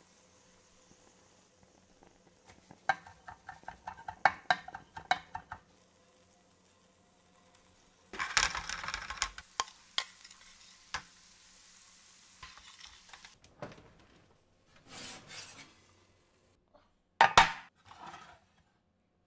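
A metal spatula stirs and scrapes garlic butter in a stainless steel skillet. A few seconds in there is a quick run of ringing metal clinks, about three a second, and the butter sizzles in bursts. Near the end comes a loud, short clatter.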